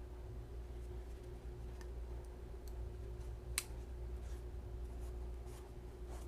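A few faint clicks from a folding knife being handled, with one sharper click about three and a half seconds in, over a steady low electrical hum.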